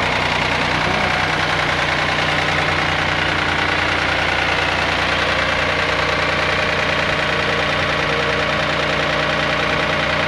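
Ford 515 industrial tractor's engine running steadily as the loader tractor is driven and turned, with no change in engine speed.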